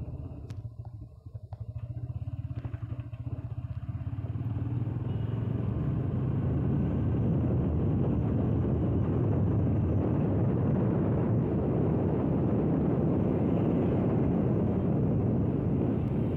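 Motorcycle engine running under way, heard from the rider's seat. Quieter for the first few seconds, then louder from about four seconds in, with a steady rush of wind and road noise over the engine.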